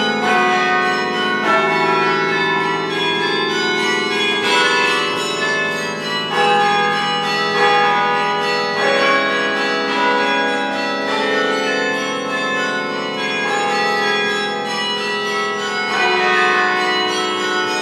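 Duke Chapel carillon played from its baton keyboard, heard from inside the playing cabin: many bells struck in quick succession, their notes overlapping as they ring on.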